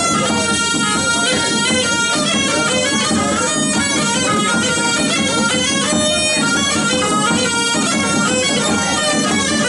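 Tsampouna, the Naxian droneless bagpipe with a double chanter, playing a quickly moving folk melody in a bright, reedy tone without pause. A rope-tensioned double-headed drum is struck along with it underneath.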